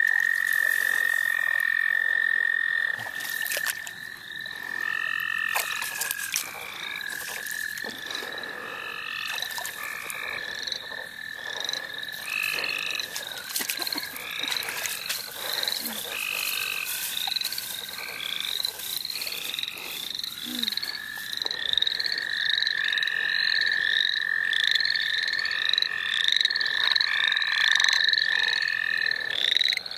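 Spring frog chorus of American toads and western chorus frogs. A long, steady toad trill runs for several seconds at the start and again through the second half. Many short rising chorus frog calls repeat over it.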